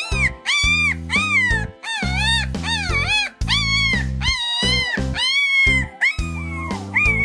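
Puppy making a quick run of short, high whining howls that rise and fall in pitch, about two a second, over background music with a steady bass line.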